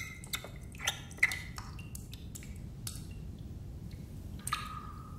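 Water drops falling from a chrome bathroom faucet into a sink: sharp, ringing plinks, four close together in the first second and a half and one more near the end, over a low room hum.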